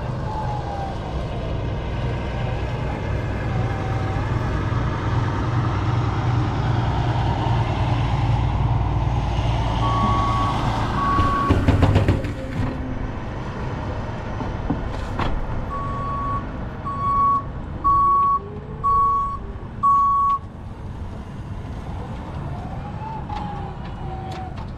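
Forklift backup alarm beeping: two beeps about ten seconds in, then five more about a second apart, over a steady low engine hum that stops about twelve seconds in. A loud clunk comes at about twelve seconds, as the forklift takes the crated load.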